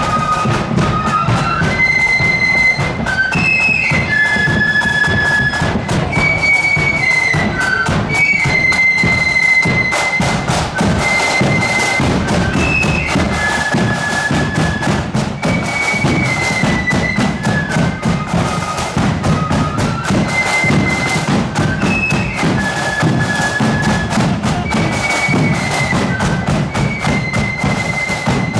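Marching flute band playing a tune: flutes carry a high melody over a fast rattle of side drums and a steady bass drum beat.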